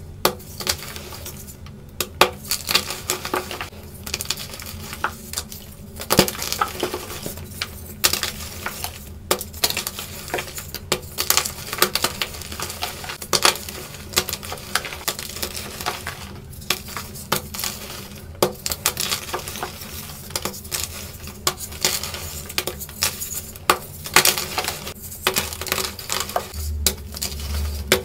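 Blocks of fresh gym chalk crushed and crumbled between fingers: a dense, irregular run of dry crunches and crackles as the blocks break and the powder crumbles.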